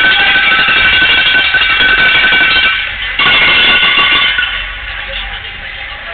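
An arena horn sounds loud and steady for about three seconds, cuts out briefly, sounds again for a second or so, then fades away.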